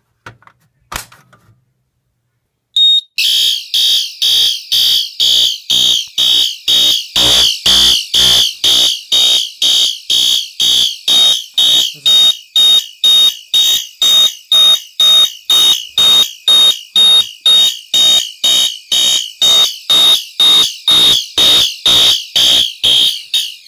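Fire alarm horns, led by a System Sensor SpectrAlert Advance horn-strobe set to low volume, sounding in march time: loud, high-pitched pulses about twice a second, beginning about three seconds in after a short click. A steady high tone joins under the pulses about halfway through.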